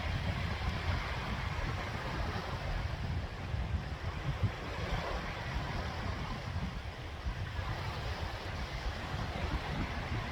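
Sea waves washing steadily onto the shore in a continuous, gently swelling rush, over a low rumble of wind buffeting the microphone.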